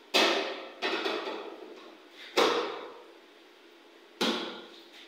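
Stainless-steel pots and bowls clanking against each other and the steel sink as they are handled and washed: four sharp clanks, each ringing briefly before it fades.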